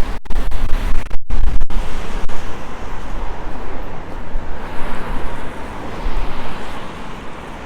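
Wind buffeting the microphone in a low rumble, with the noise of a car passing on the street, swelling to its loudest about five seconds in and then fading.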